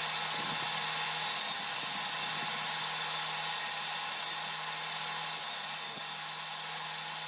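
Circular saw running steadily, its blade set to a shallow depth for cutting notches into a wooden stringer.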